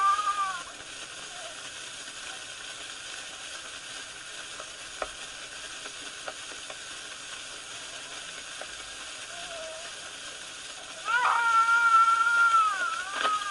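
Newborn baby crying on an 1892 wax cylinder home recording, under a steady surface hiss with a few faint clicks. A cry trails off at the start, and a long wail comes about eleven seconds in.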